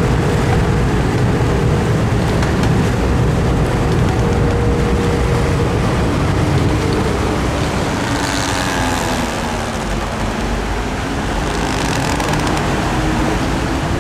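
An engine running steadily under a heavy low rumble, its hum holding one pitch, sagging and then rising again over the last few seconds.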